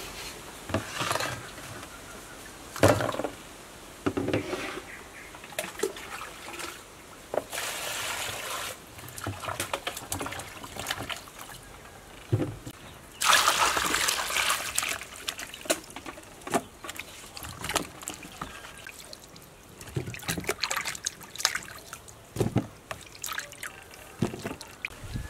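Hands washing limes and lemongrass in a bowl of water: splashing and trickling with light knocks, and two longer pours of water, about 8 and 13 seconds in.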